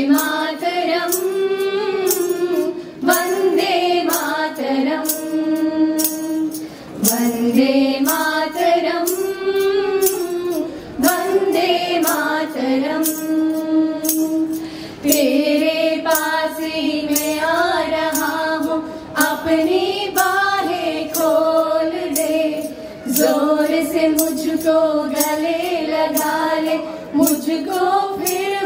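A group of women singing a slow melody together in unison through microphones, holding long notes, over a regular beat of light percussion strikes.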